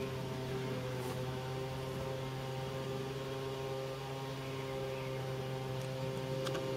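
A steady low drone of several held tones that do not change in pitch, with a few faint ticks.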